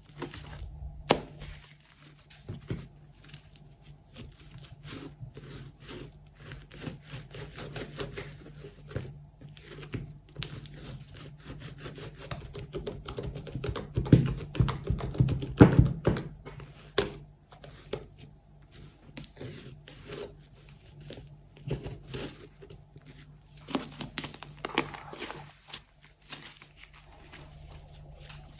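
Slime being squished, stretched and mixed by hand, giving dense irregular sticky clicks and crackles that are loudest about halfway through. A steady low hum runs underneath.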